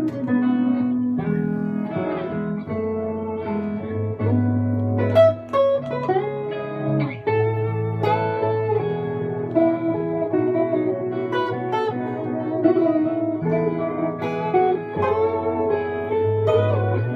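Stratocaster-style electric guitar played solo, a melodic line of held notes over low bass notes that change every second or so.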